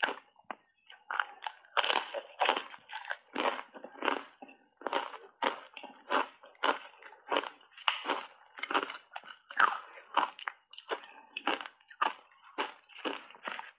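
Thin block ice coated in matcha powder being crunched and chewed with the mouth: a steady run of short, sharp crunches, roughly two a second.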